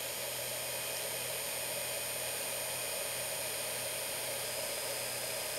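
Electric space heater on high buzzing steadily, a low hum with a higher buzz over it, because it is running on a modified sine wave inverter's output; an even rushing fan noise runs underneath.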